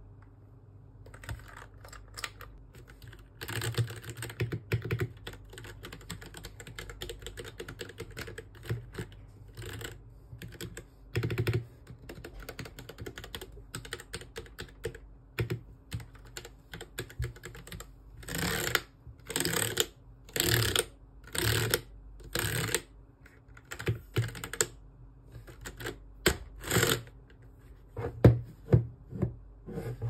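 Typing on a Royal Kludge RK84 mechanical keyboard with brown (tactile) switches: rapid keystroke clacks, then a run of louder separate key presses about a second apart, then more scattered keystrokes.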